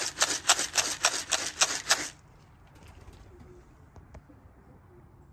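Racing pigeon's wings clapping and flapping close by, a rapid clatter of about five beats a second that stops abruptly about two seconds in.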